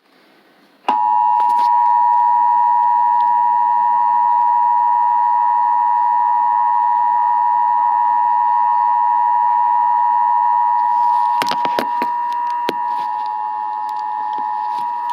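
Emergency Alert System two-tone attention signal: a loud, steady dual-tone alarm that starts abruptly about a second in and holds without a break, announcing a Required Monthly Test. A few sharp clicks crackle over it about three-quarters of the way through.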